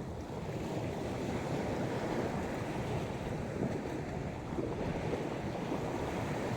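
Sea waves washing steadily onto the beach, with wind buffeting the microphone.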